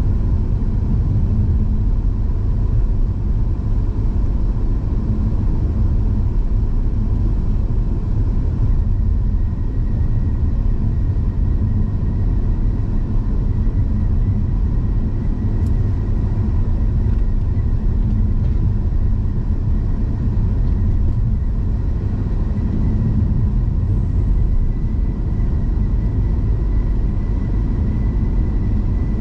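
Steady low rumble of a car driving along: road, tyre and engine noise heard from the moving car.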